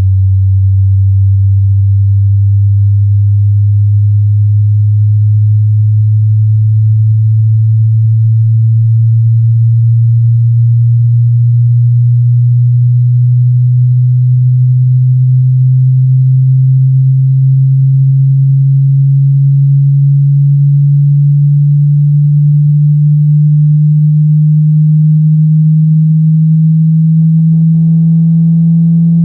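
Hearing-test sine tone: a single pure tone, very low in pitch, gliding slowly and evenly upward throughout, part of a frequency sweep for checking hearing.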